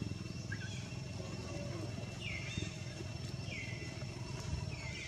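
Baby macaque giving high-pitched squeals that fall in pitch, three strong ones about a second and a half apart from about two seconds in, after a fainter short one early, over a steady low rumble.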